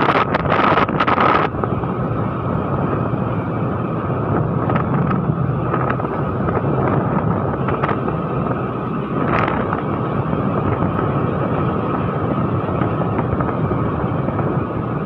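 Wind rushing over the microphone of a moving motor scooter, with the scooter's running and road noise steady underneath. It is gustier for about the first second and a half, then evens out.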